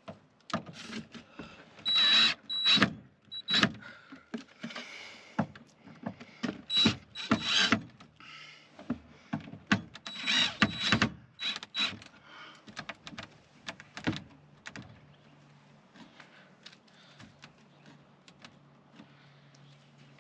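Electric drill running in several short bursts of about a second each, a thin whine in each, with clicks and knocks of handling in between.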